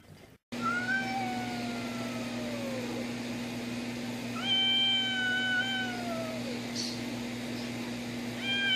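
Cat yowling in long, drawn-out calls: two of about two seconds each that sag in pitch at the end, and a third starting near the end. This is the warning caterwaul of a cat squaring off with another. A steady low hum runs underneath.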